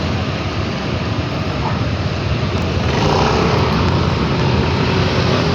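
Steady vehicle and road noise of a ride through traffic, with a low rumble and an engine hum that get louder about three seconds in.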